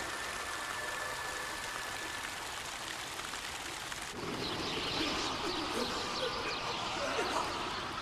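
A flock of birds calling, breaking in suddenly about halfway through over a steady background hiss.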